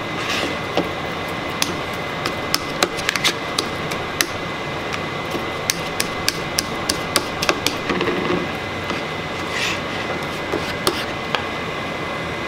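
Metal fork mashing garlic in a ceramic bowl: irregular sharp clicks and taps of the tines against the bowl, several a second, over a steady background hum.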